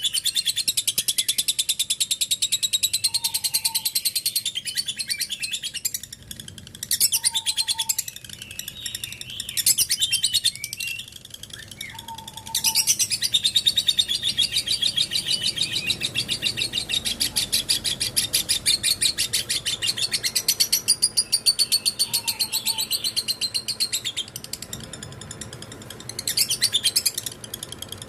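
Lovebird 'ngekek': a long, fast, high-pitched chattering trill delivered in extended runs. The longest run lasts over ten seconds, with short pauses in between.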